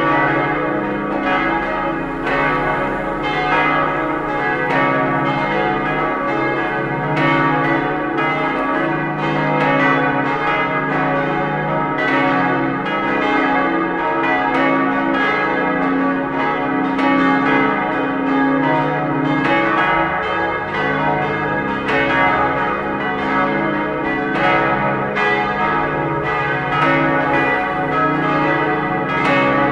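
Church bells of a five-bell peal (strike tones D♭, E♭, G♭, A♭, B♭; three cast by Otto of Bremen in 1954, one by Perner in 1992, one by the Klaus brothers in 1930) swinging and ringing together, their strikes overlapping in a steady continuous clangour.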